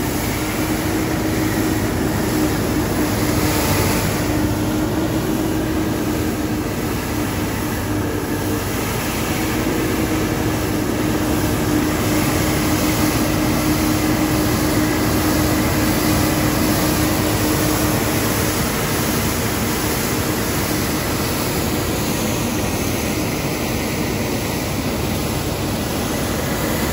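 Mathieu Azura compact street sweeper running while standing still: a steady mechanical drone with a constant low hum and a faint high whine.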